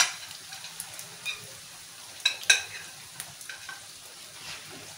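Vegetables sizzling in oil in a wide pan over a wood fire while a utensil stirs and scrapes them, with two sharp metallic clinks against the pan a little over two seconds in.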